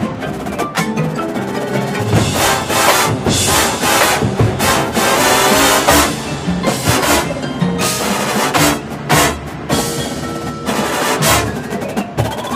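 Drum and bugle corps playing live, with the drumline and front-ensemble mallet keyboards prominent: a dense wall of sustained pitches punctuated by frequent sharp drum and wood-block-like strikes.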